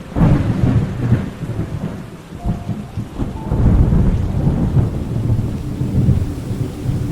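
A thunderclap breaks suddenly and rolls on as a long, low rumble over steady rain, easing off briefly and then swelling again partway through.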